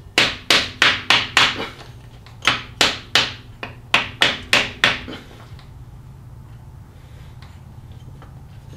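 Hammer tapping a homemade plastic seal driver to press a new front crankshaft seal into the engine's front cover. Two runs of quick, sharp taps, about three a second, stop about five seconds in.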